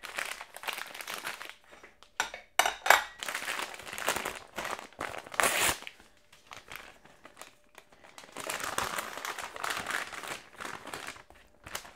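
Brown butcher's paper crinkling and rustling in irregular bursts as a paper package of sausages is unwrapped by hand.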